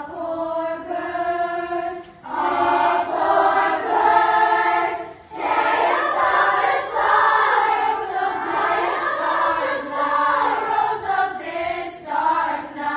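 Chorus singing together in sustained notes, pausing briefly about two seconds in and again about five seconds in.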